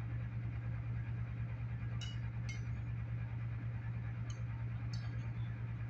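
A steady low hum, with a few light clicks of eating utensils against a food container about two seconds in and again near the end.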